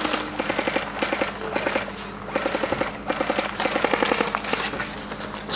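Airsoft electric guns firing full-auto: a fast, even clatter of shots in several bursts with short pauses between them.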